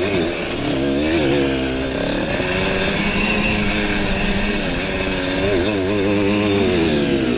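Simson two-stroke single-cylinder engine of a racing pitbike, heard from on board, revving hard and dropping back again and again as the throttle is opened and closed around the dirt track. The pitch dips near the start and again near the end.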